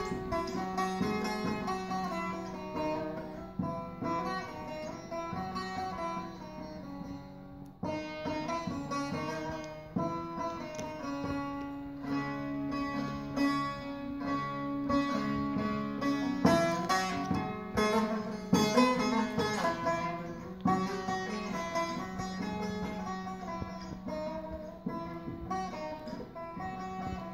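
Bağlama (long-necked Turkish saz) played solo: a quick run of plucked melody notes over a steady ringing drone string, a Turkish folk tune with no singing yet.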